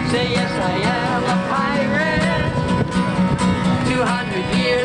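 Acoustic guitar played live with singing voices, a song in progress.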